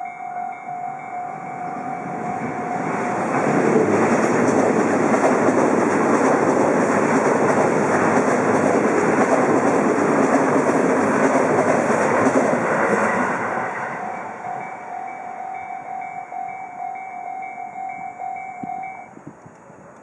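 Japanese level-crossing warning bells ringing over and over, drowned out from about three seconds in by an electric commuter train passing over the crossing. The train's rumble fades by about fourteen seconds, the bells ring on alone, and they stop shortly before the end.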